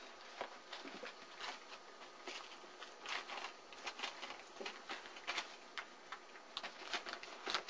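Four-week-old German Shepherd puppies moving about at play: a dense run of irregular light clicks and scratches from their paws and claws, several a second.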